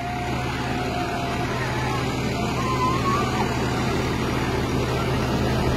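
Swaraj 744 tractor's three-cylinder diesel engine running steadily at close range, growing slightly louder toward the end.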